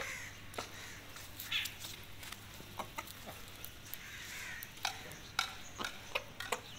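Chickens pecking grain off a concrete floor: irregular sharp taps of beaks on the hard ground, with soft clucking.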